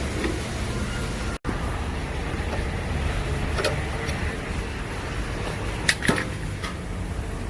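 A steady low background rumble with a few light, sharp knocks and clicks, one about three and a half seconds in and two close together near six seconds, as the metal parts of a combine's threshing screen assembly are handled. The sound cuts out for an instant about one and a half seconds in.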